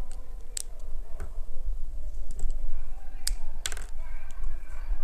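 Several sharp clicks and taps, with a cluster of them about three and a half seconds in, over a steady low rumble.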